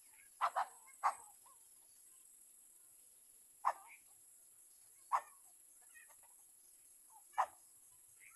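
A dog barking in the distance, about six short barks at uneven intervals, the first three close together. Beneath them runs a steady high buzz of insects.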